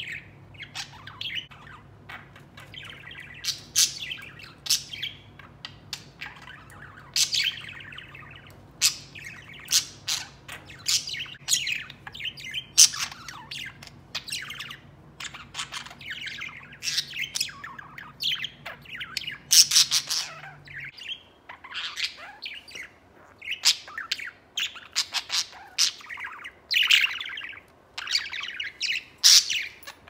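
Budgerigar chirping, a long run of short bright chirps, one every second or so.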